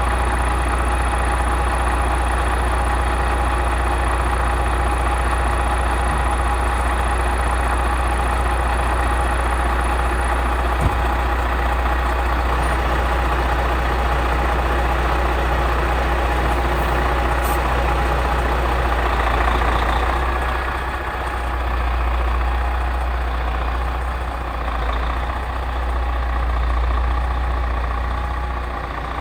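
GMC cab-over truck's engine idling with a steady, deep rumble, dipping slightly in level about twenty seconds in, as the truck is eased at low speed into a tight garage.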